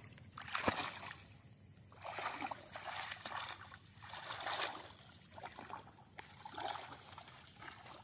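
Water sloshing and splashing in several swells a second or two apart, as a person moves through the water during net fishing, with a short click near the start.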